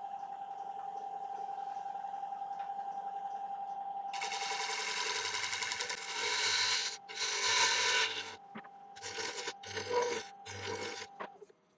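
Wood lathe running with a steady whine. From about four seconds in, a turning tool cuts the spinning dry yew bowl's rim in several scraping passes with short breaks between them. The lathe's tone cuts off just before the end.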